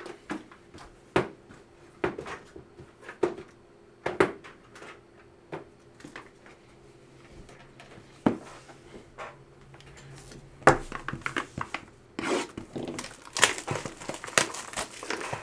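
Sealed trading card packaging being handled and opened by hand: scattered taps and clicks of cardboard and cards, then, from about ten seconds in, a denser run of crinkling and tearing of wrappers.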